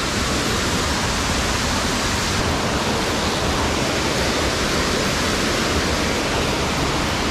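Steady rushing of a waterfall on a mountain headwater stream, a constant even roar of falling water.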